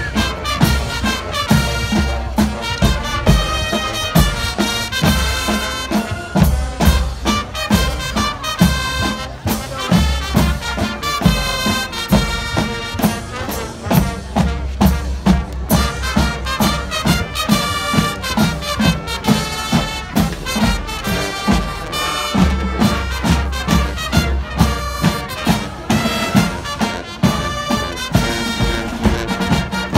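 Marching band playing on the field: massed brass (trumpets and trombones) carrying a melody over a steady drum beat.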